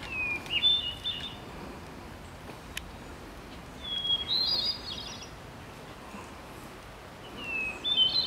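A songbird singing the same short phrase three times, about four seconds apart: a high note sliding down, then a quick run of higher chirps.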